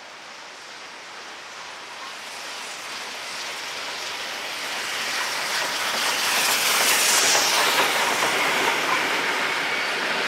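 Victorian Railways D3-class steam locomotive 639 and its wooden carriages approaching and passing close by. The sound grows steadily louder to a peak about six to seven seconds in, with a strong hiss as the engine goes by. The carriages then roll past on the rails.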